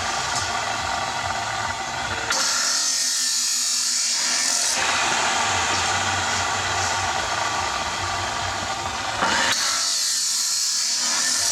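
An electric power tool motor running steadily. Twice it changes to a harsher, higher hiss for about two seconds each time.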